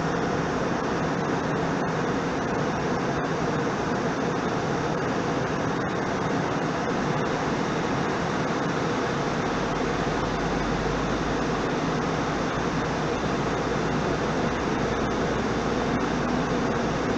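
Steady cabin noise of an airliner in flight, engines and rushing air heard from inside at a window seat, with a deeper low hum strengthening about ten seconds in.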